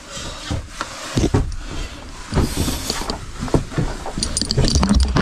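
Irregular scuffs, knocks and rustling of a person scrambling up over rock and mud, busier towards the end, with low rumble from the body-worn camera's microphone.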